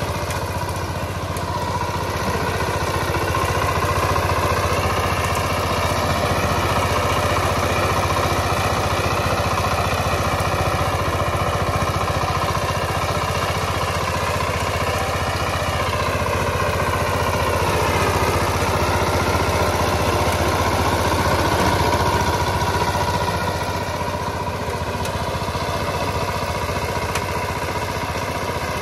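VST Shakti 130 DI power tiller's single-cylinder diesel engine running steadily under load while its rotary tiller works the soil. Its pitch wavers and dips briefly about two-thirds of the way through, then settles.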